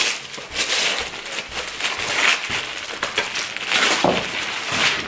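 Wrapping paper being torn and crumpled off a gift box, in irregular bursts of rustling and crackling paper.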